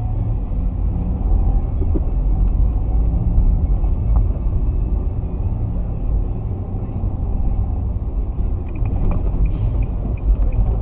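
Low, steady rumble of a car's engine and road noise heard inside the cabin while driving, with a quick light ticking near the end.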